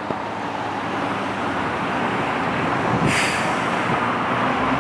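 Road traffic noise: a motor vehicle passing, its sound swelling gradually louder, with a short hiss about three seconds in.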